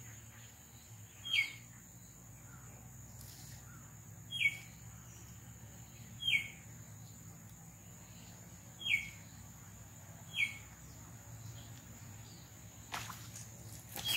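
A bird calling: a single short note sliding downward, repeated five times a couple of seconds apart. A few brief clicks and rustles come near the end.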